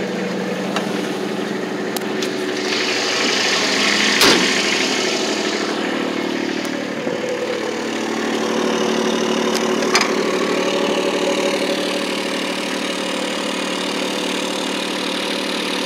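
Kubota RTV-X1100C utility vehicle's three-cylinder diesel engine idling steadily, with a sharp knock about four seconds in and a lighter click around ten seconds.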